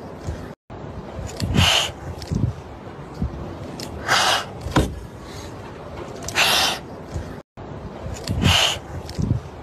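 Two frightened tabby kittens hissing defensively: four sharp, breathy hisses, each about half a second long and roughly two seconds apart.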